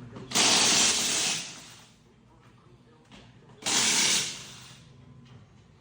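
Two hissing blasts from a pressurised nozzle: one about a second long just after the start, and a shorter one a little past halfway. This is typical of blowing file dust off a freshly sharpened chainsaw chain.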